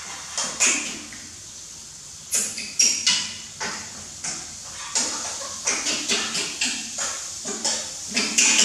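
Bread in egg frying in a pan on a portable gas stove: a steady sizzle, with a slotted metal spatula scraping and tapping against the pan about every half second.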